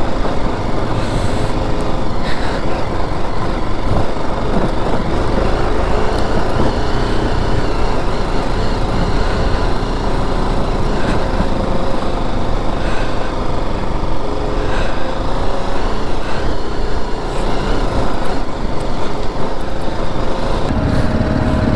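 A BMW G 310 GS's single-cylinder engine running steadily as the bike climbs a steep, rough dirt track, its note mixed with a constant rumble and rush of noise.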